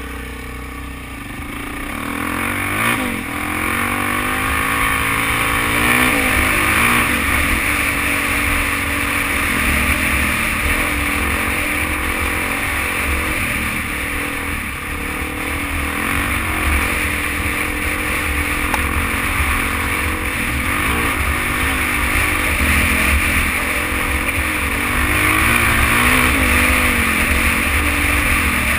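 Suzuki DR-Z400's single-cylinder four-stroke engine running as the dirt bike is ridden, heard from on the bike itself; its pitch rises and falls with the throttle, and it gets louder over the first few seconds.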